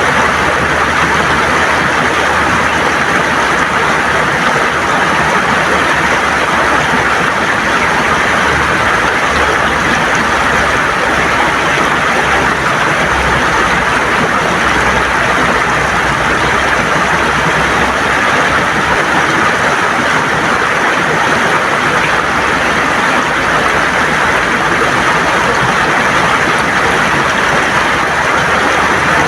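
River water gurgling and rushing over stones, a steady, loud flow.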